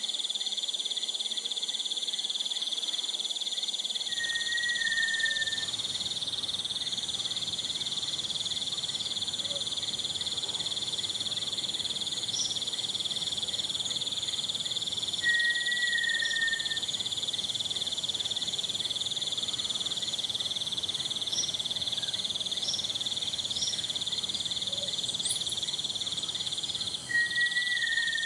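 Amazon rainforest night chorus of insects and frogs: a steady, high-pitched drone with a few thinner continuous tones above it. A short, slightly falling whistled note sounds three times, about every eleven seconds.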